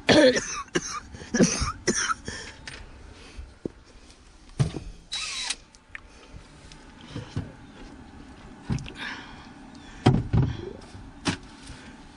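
Handling noises: scattered knocks, clunks and light rattles as a plastic fuel tank and its lid are moved about, with a short scraping burst about five seconds in.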